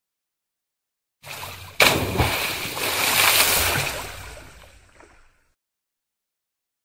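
Water pouring and splashing, a sound effect to an animated logo: it starts about a second in, turns sharply louder with a splash just after, then fades away over the next few seconds.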